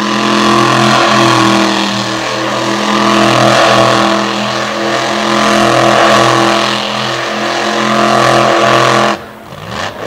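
Monster truck engine held at high revs as the truck spins donuts, then the throttle drops off sharply about nine seconds in.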